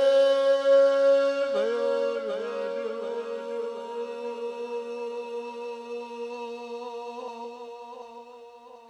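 A single voice holding one long chanted note at a steady pitch. It wavers slightly twice early on, then slowly fades away.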